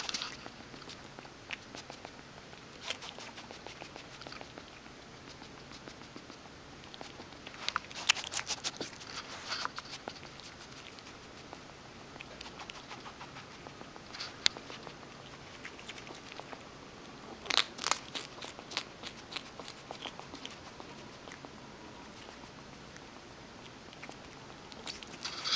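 Striped skunk eating small crumbs off a carpet: bursts of crisp crunching and clicky nibbles, heaviest about eight seconds in and again around eighteen seconds, with lighter scattered clicks between.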